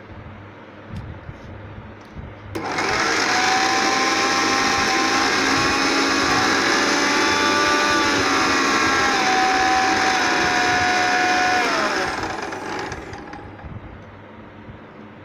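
Bajaj Glory 500-watt mixer grinder, fitted with its juice jar, switched on for a test run: the motor starts suddenly about two and a half seconds in and runs at full speed with a high whine for about nine seconds. It is then switched off and spins down, its whine falling in pitch as it slows.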